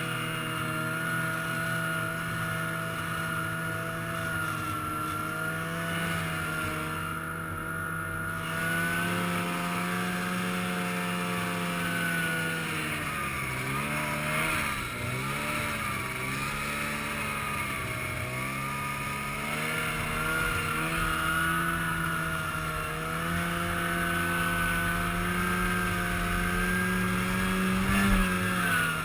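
Arctic Cat snowmobile engine running at speed under a rider. Its pitch dips and picks up again several times as the throttle eases and opens, then rises near the end as the sled heads up a snow mound.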